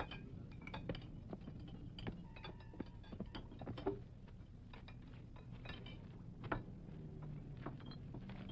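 Faint scattered small clicks and light taps over a low steady hum.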